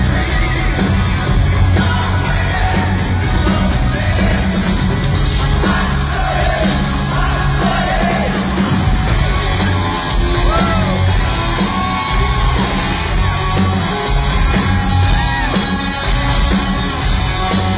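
Live rock band playing: electric guitar, bass and drums under a singer's loud, yelling lead vocal.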